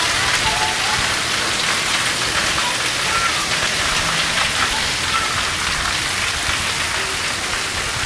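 Steady hiss of water falling and splashing onto a hard surface, with a dense patter of drops.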